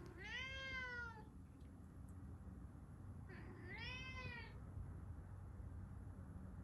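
A pet cat meowing twice, a second or so each, every meow rising and then falling in pitch; the second comes about three seconds after the first.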